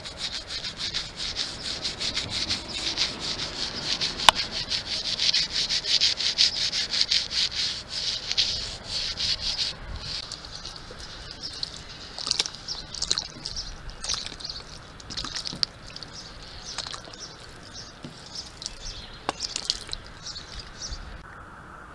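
Bristle brush scrubbing a foaming stain remover into window trim in quick back-and-forth strokes, a dense scratchy rasp. About halfway through the strokes turn lighter and more broken, and they stop shortly before the end.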